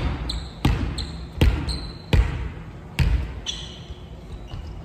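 A volleyball is bounced on a wooden gym floor four times, a little under a second apart, each thump echoing in the hall. Short high squeaks of shoes on the floor come in between.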